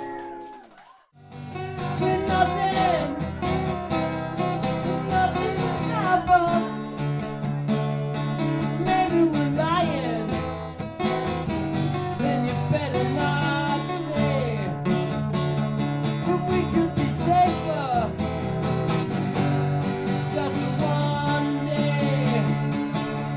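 Live acoustic guitar strumming with a voice singing over it. The sound drops out briefly about a second in before the music starts.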